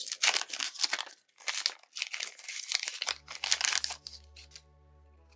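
Foil booster-pack wrapper being torn open and crinkled by hand: a rapid run of crackles and rustles for about four seconds. After that only a faint steady hum remains.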